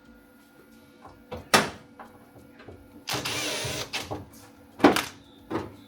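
Sheet-metal repair panel being handled and fitted against the car body. A sharp metal knock comes about one and a half seconds in, a brief scraping rush a little after three seconds, and two more knocks near the end.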